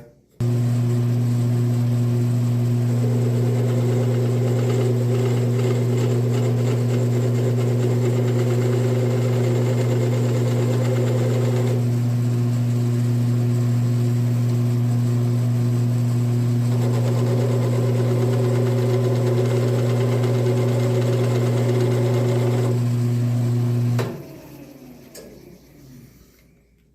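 Wood lathe switched on: its motor runs with a steady, loud hum. Twice a turning knife is held against the spinning wood for several seconds, adding a rough scraping cut. Then the lathe is switched off and winds down over about two seconds.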